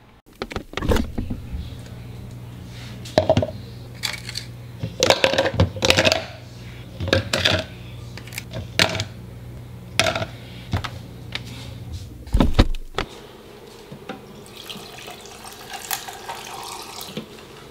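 Ice cubes knocking and clinking as they are worked out of a plastic ice tray, over a steady freezer hum, ending in a heavy thump. Near the end, water runs for a few seconds from the spigot of a countertop water dispenser.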